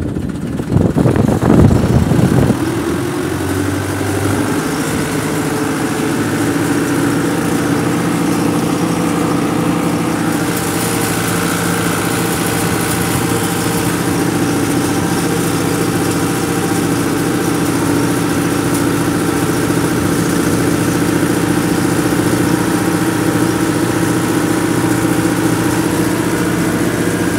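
Massey Ferguson 385 tractor's four-cylinder diesel engine running. It is louder and rougher for the first couple of seconds, then settles into a steady, even run at constant speed.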